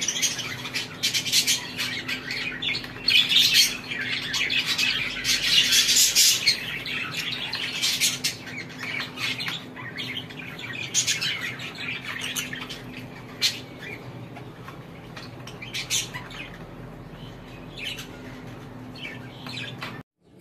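Many caged birds squawking and chirping, a dense overlapping chorus that thins out about halfway through, over a faint steady hum.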